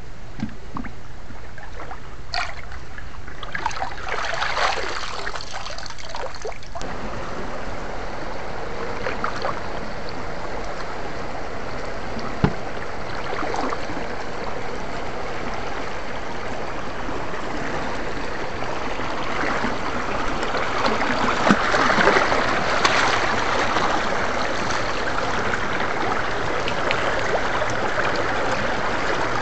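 Shallow rocky stream running and trickling steadily, with a few sharp knocks; the water sound grows louder about two-thirds of the way in.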